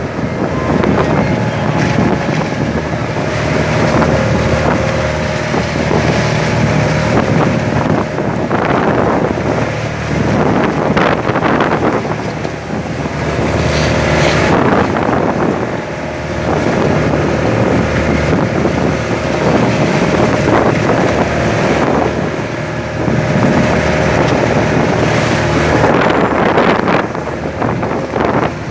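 A fishing boat's engine runs steadily at sea, with wind buffeting the microphone. The rush of wind and water swells in surges every few seconds.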